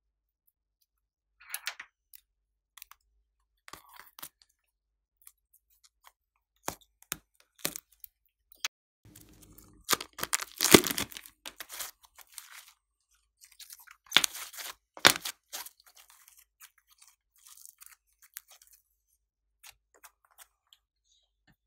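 Plastic piping bags crinkling and rustling in the hands as they are handled and squeezed, with scattered small clicks and soft clay squeezed out. The loudest crinkling comes in two bursts, about ten and fourteen seconds in.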